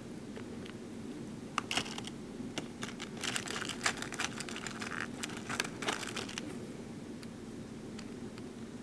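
Light clicks and rattles of small BeadOs beads being picked from a plastic sorting tray and set into a plastic pegboard layout tray, with a cluster of clicks about three to four seconds in and another near six seconds.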